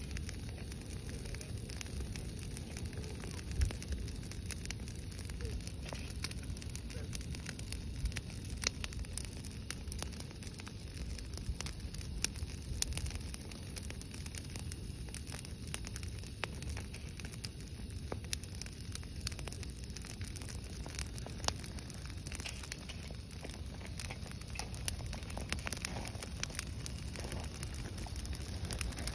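Brush-pile fire of dry branches burning, with many irregular sharp crackles and pops over a low steady rumble.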